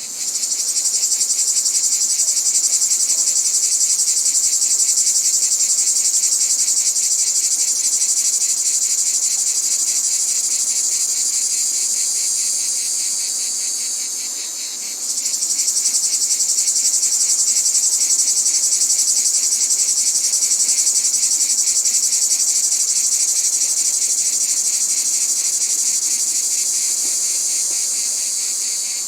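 Cicadas singing: a continuous, shrill, finely pulsing buzz that eases off briefly about halfway through, then resumes at full strength.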